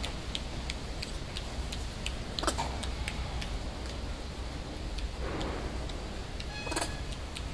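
Light, irregular clicks and ticks of a wire-mesh cage as a baby monkey climbs and shifts about on the bars, with a couple of sharper knocks and a brief rustle, over a steady low hum.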